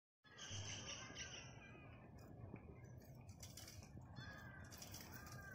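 Faint birds calling, a few short arching calls over a low background hum.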